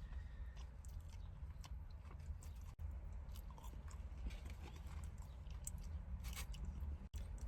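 Close-miked chewing and crunching of crispy fried chicken, with many small, irregular crackles and wet mouth sounds, over a steady low hum.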